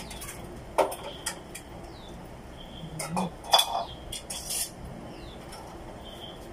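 Eating sounds close to the microphone: a handful of sharp crunches and clicks as food is chewed and picked by hand from a metal serving tray, loudest about three and a half seconds in.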